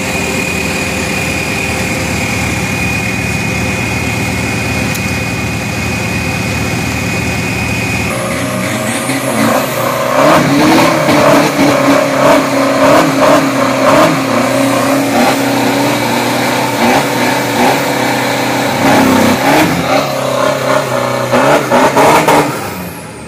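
A pickup truck engine idles steadily. About eight seconds in it gives way to a loud burnout: the engine revved hard, its pitch rising and falling, as the rear tyre spins in smoke. It drops off suddenly near the end.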